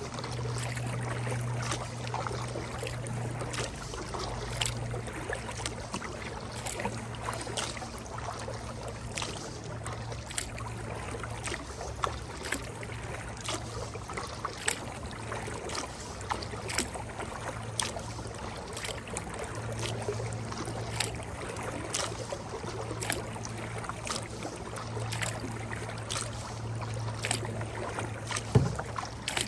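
Kayak paddle dipping and splashing in river water, with irregular drips and small splashes about once or twice a second over a steady low hum.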